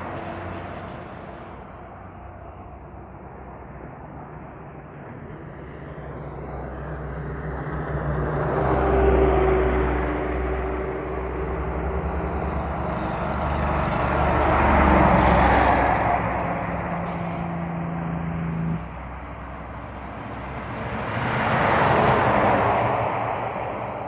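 Heavy diesel trucks passing on the road, their engine hum and tyre noise swelling and fading three times as vehicles go by. About three quarters of the way through, one engine's steady note drops off abruptly.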